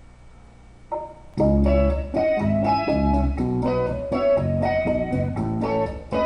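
A song with guitar, bass and a steady beat starts abruptly about a second and a half in, after a faint hum and a single lead-in note.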